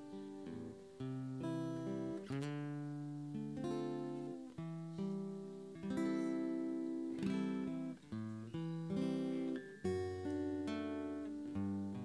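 Acoustic guitar strumming slow chords. Each chord starts sharply and rings on, with a new chord about once a second.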